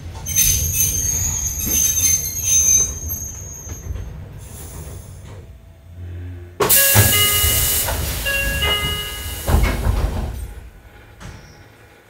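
Hakone Tozan Railway train's steel wheels squealing against the rails on tight curves. A high squeal runs through the first few seconds, then a loud rushing noise with several squealing tones from about six and a half to ten seconds in, fading near the end.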